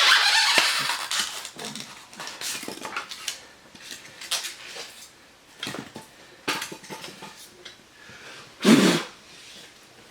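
Packing foam being worked loose and pulled out of the saw's packaging: rustling and rubbing, loudest at the start, then scattered knocks and clicks and one louder, short rub near the end.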